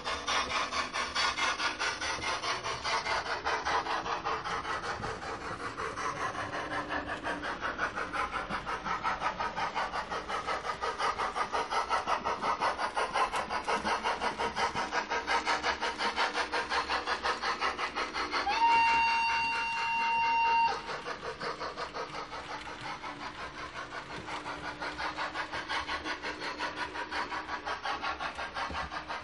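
Digital sound decoder in an H0 Hornby Rivarossi FS Gr 741 steam locomotive model playing a steady, rapid exhaust chuff as the model runs. The chuff swells and fades in loudness. About two-thirds of the way through, a loud steam whistle sounds for about two seconds, sliding up briefly at its start.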